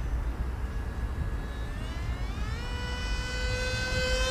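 Electric motor and pusher propeller of an RC flying-wing jet whining in flight. The whine rises in pitch about two seconds in, then holds a steady high note while growing louder as the plane comes closer, over a low wind rumble on the microphone.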